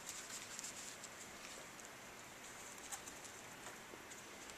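Quiet room with faint rustling and scattered light ticks, and one slightly sharper click about three seconds in.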